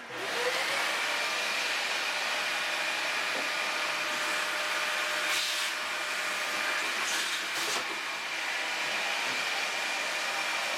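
Vacuum cleaner running steadily with a high whine, reaching full speed about half a second in, as it sucks dust out of a ceiling bathroom-fan housing. A few brief clicks come near the middle.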